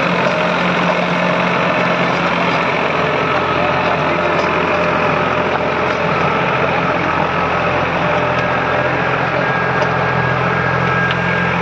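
New Holland 3600-2 4WD tractor's three-cylinder diesel engine running steadily under load, driving a rotavator that churns through dry field soil.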